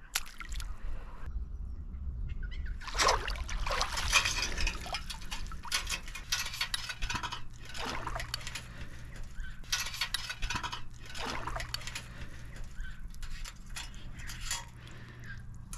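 Shallow water splashing and trickling as a round wire crab scoop is pushed through it and lifted, in irregular splashes that begin about three seconds in.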